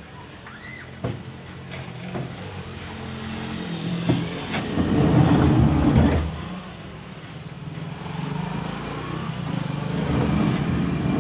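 A motor vehicle's engine running, swelling loud for a couple of seconds about halfway in and rising again near the end, with a few sharp knocks in between.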